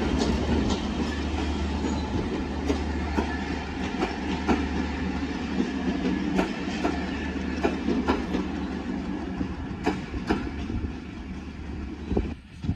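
Passenger coaches rolling past on the rails, their wheels clicking over the rail joints over a steady rumble. The sound fades as the train draws away, dropping off sharply near the end.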